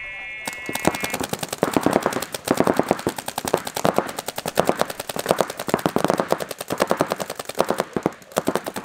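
Paintball markers firing rapid, nearly continuous streams of shots, with a brief lull about eight seconds in. A short electronic tone sounds at the very start.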